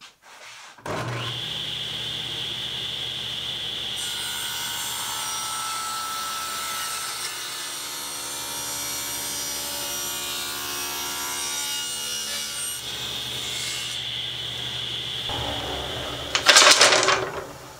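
Table saw running and ripping pine boards into quarter-inch strips: a steady high blade whine with heavier cutting noise through the middle. A brief loud clatter near the end.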